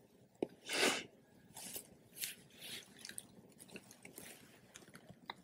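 Faint breathing and mouth noises from a man pausing mid-sentence: a breath about a second in, then softer breaths and scattered small lip and tongue clicks.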